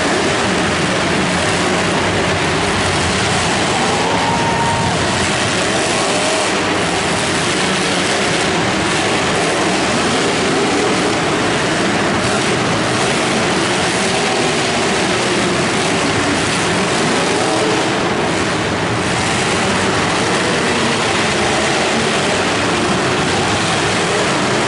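Many demolition derby cars' engines running and revving together in a loud, steady din.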